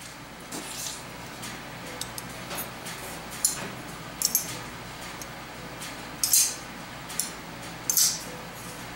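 Titanium framelock folding knife being handled, giving scattered light metallic clicks and clinks every second or so, with the sharpest clicks in the second half.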